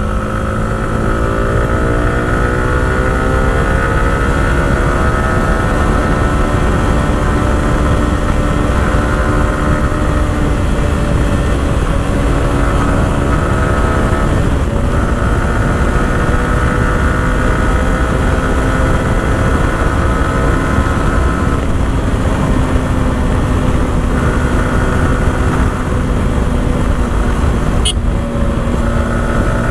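Yamaha R15 V4's single-cylinder engine running at a steady cruise while riding, its note holding nearly even pitch with a few brief dips, over heavy low wind and road rumble.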